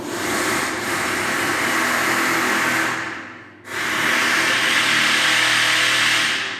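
Electric 230 V piston actuator of a walk-on floor skylight running as it lowers the stainless-steel and glass lid: a steady motor whir. It fades out about three seconds in, starts again abruptly under a second later, and stops near the end.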